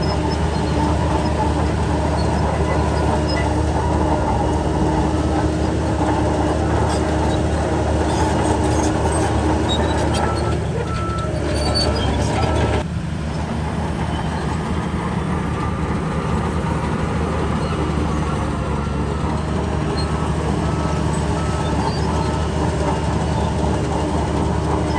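Shantui DH17 bulldozer's diesel engine running steadily, with faint metallic clinks over it; the sound shifts abruptly about halfway through.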